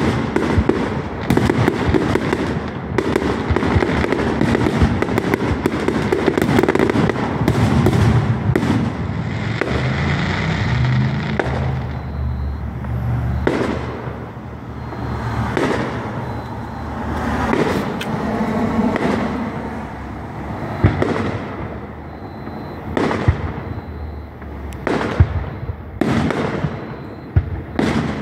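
Aerial fireworks display: shells bursting in a dense barrage with rumbling and crackle, thinning out midway, then separate sharp bangs every second or two near the end.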